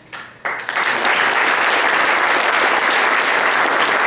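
Audience applauding, starting about half a second in and quickly reaching a full, steady clapping.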